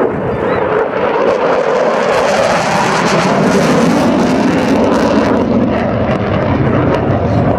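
Display aircraft flying past, a loud continuous rushing roar whose pitch drops partway through as it goes by.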